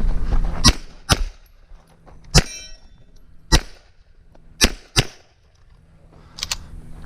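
Eight pistol shots, unevenly spaced, several in quick pairs. One shot, a little over two seconds in, is followed by a brief metallic ring, like a steel target being hit.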